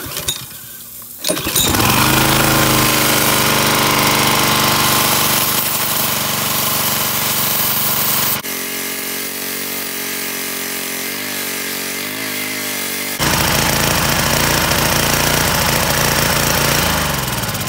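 Honda GCV160/GCV190 pressure-washer engine pull-started: it catches about a second in and runs steadily, freshly fitted with new rocker arms after a hard-pull problem. Near the end its pitch falls as it slows.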